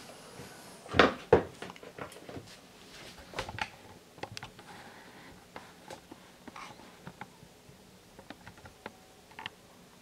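Handling knocks and light clicks as a running shoe is picked up and set on a scale to be weighed. The loudest knock comes about a second in, followed by scattered smaller clicks.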